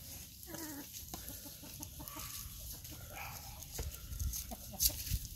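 Chickens clucking faintly in short, scattered calls, with one sharp click near the end.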